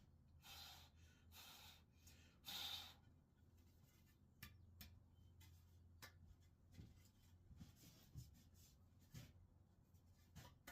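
Near silence: faint room tone with a low steady hum, a few soft brushing sounds in the first three seconds, and scattered light clicks.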